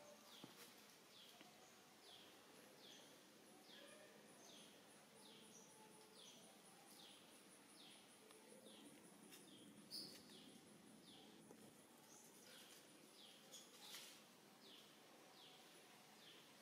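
Faint outdoor ambience: a short high chirp that falls in pitch, repeated steadily about twice a second, over a thin high trill. A couple of brief louder ticks come about ten and fourteen seconds in.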